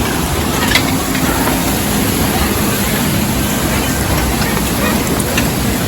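Steady loud outdoor noise with voices in the background and a couple of faint clicks.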